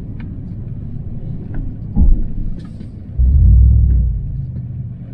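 Steady low rumble of a vehicle on the move, with a sharp knock about two seconds in and a louder stretch of rumble from about three to four and a half seconds.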